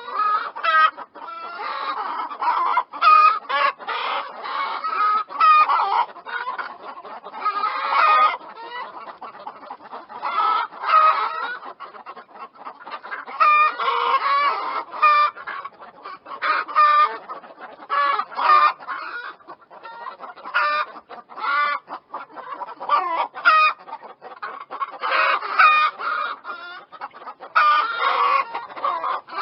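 A flock of chickens clucking continuously, many short overlapping calls from several birds at once.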